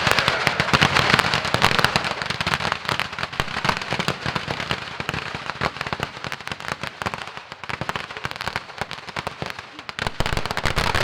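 Fireworks crackling: a dense, rapid run of sharp cracks and pops. It is loudest at first, thins out in the middle and picks up again near the end.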